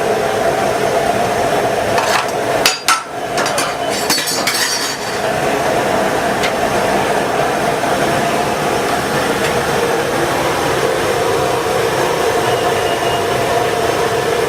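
Metal cooking utensils knocking and clinking against pots, in a cluster of knocks about two to five seconds in, over a steady rushing noise.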